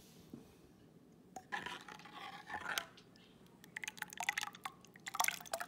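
A steel ladle stirring and scooping thin, unheated curry liquid in a pan: wet sloshing with scrapes and small clicks of the ladle on the pan, in two short spells after a quiet first second or so.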